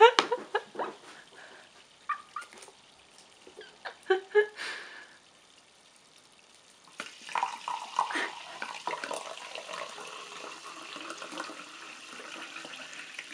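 Sparkling water poured from a bottle into a glass, a steady splashing, fizzing rush that starts about seven seconds in. Before it, a woman laughs a few times.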